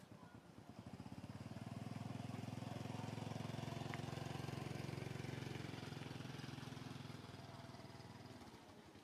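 A motor vehicle's engine passing by on the road: a low steady hum that grows about a second in, is loudest midway and fades away near the end.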